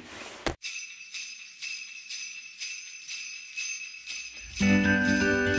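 Background music: the intro of a Christmas-style song, sleigh bells shaking in a steady rhythm. Bass and chords come in near the end.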